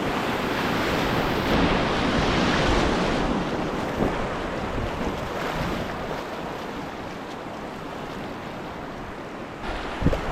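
Rushing river water of a whitewater rapid, with wind noise on the microphone. It is louder in the first half, eases off, then surges again near the end.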